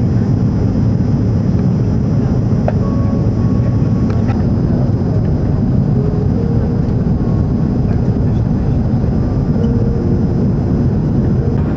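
Steady cabin rumble of an Airbus A340 airliner on its landing approach, engine and airflow noise heard from inside the cabin.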